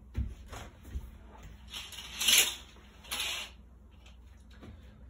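Curtains being drawn open: several swishes of fabric sliding along the curtain rail, the loudest about two seconds in, with a few soft knocks before it.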